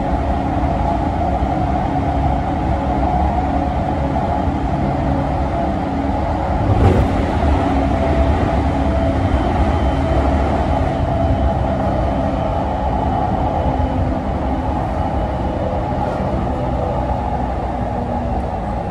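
E231 series 800 electric commuter train running at speed, heard from inside the car: a steady rumble of wheels on rail with the held tones of its original, unrefurbished VVVF inverter traction drive, which shift in steps. A single louder clatter comes about seven seconds in.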